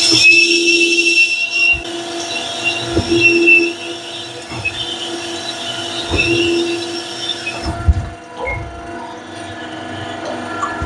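A honing machine's stones run inside an S44 engine's cylinder sleeve, giving a loud, high metallic squeal that cuts off about eight seconds in. Under the squeal, a lower tone swells and fades about every three seconds, and a quieter machine sound carries on after it stops.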